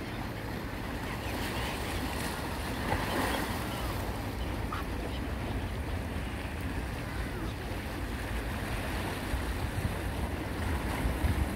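Small sea waves washing and splashing over shoreline rocks as a steady rush. Wind rumbles on the microphone throughout, gusting louder near the end.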